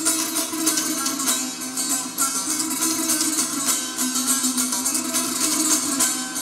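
Solo long-necked lute played with rapid plucked and strummed notes in a steady, running pattern.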